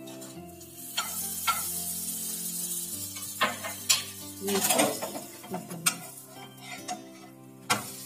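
Butter sizzling as it melts on a sandwich frying in a nonstick pan, with a spoon tapping and scraping the pan. Several sharp knocks of utensils against the pan follow as the sandwich is turned over.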